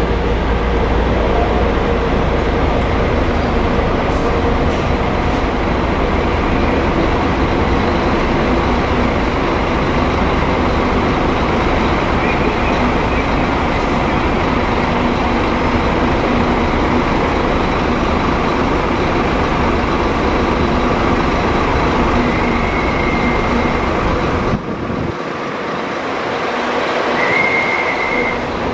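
Scania diesel engine of a Modasa Zeus 3 double-decker coach idling steadily: a loud, even mechanical drone with a deep rumble underneath. About 25 seconds in, the deepest rumble suddenly drops away, and near the end a short high whine sounds.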